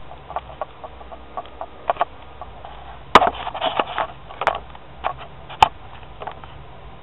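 Irregular clicks, knocks and rubbing of a webcam being handled and repositioned, with two sharp, louder knocks, about three seconds in and again about two and a half seconds later.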